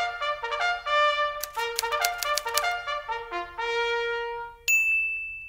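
Intro music: a short trumpet tune of quick separate notes ending on a longer held note, then a single high ringing note just before the end that fades away.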